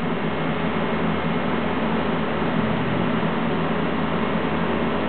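Okonomiyaki sizzling steadily on a hot steel teppan griddle while sauce is spread over it, over a constant fan-like hum.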